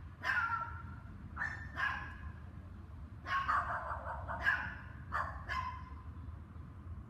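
Dogs barking, about seven barks in loose groups, over a steady low hum.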